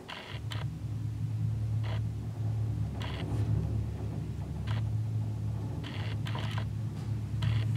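Contemporary chamber music: a sustained low drone that sets in just after the start and slowly grows louder, with short hissing scrapes or rattles every second or so.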